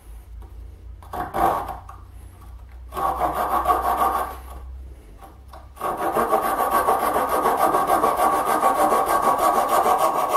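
Jigsaw blade held in a hand handle sawing a wooden dowel by hand: a short stroke, then a longer pass, then steady fast back-and-forth sawing from about six seconds in.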